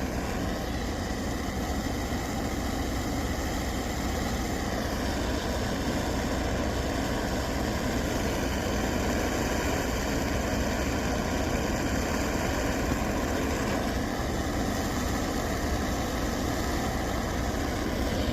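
Handheld torch flame running steadily as it heats a dab rig's banger, to the point of getting it too hot.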